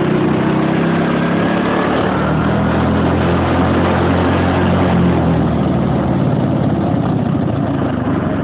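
Model T go-kart's engine running steadily and loud, its note shifting a little in the second half.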